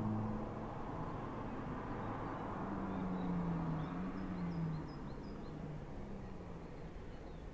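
A car engine heard from a distance, a low hum that swells about three seconds in and fades out near five seconds as the car passes out of earshot, with a few faint bird chirps.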